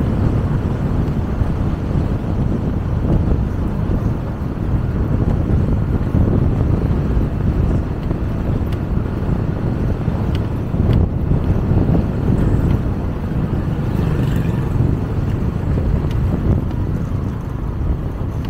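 Steady low rumble of a motorcycle under way, the engine blended with road and wind noise.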